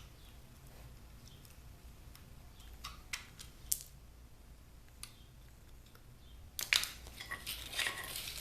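Small parts of a clothes steamer being handled during disassembly: a few light clicks, then a busier stretch of clicking, scraping and rattling near the end.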